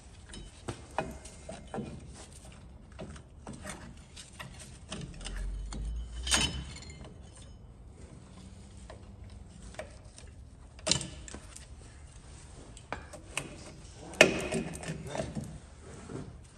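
Hand tools working on a rusted brake cylinder as it is taken off the truck: scattered metal clicks and ratchet-like clinks, with a few sharper knocks about six seconds in, at eleven seconds and near the end.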